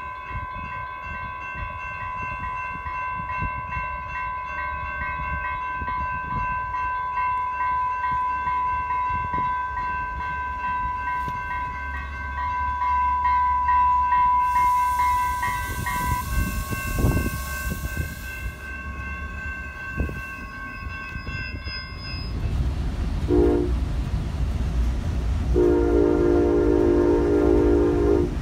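Commuter train pulling into the station with its bell ringing steadily. About halfway through there is a rush of air hiss, and the bell stops once the train is stopped. Near the end a short tone sounds, then a longer one.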